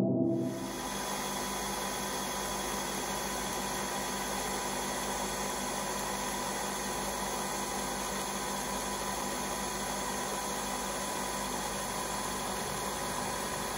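Coffee machine dispensing hot milk into a mug: a steady hiss with a faint hum.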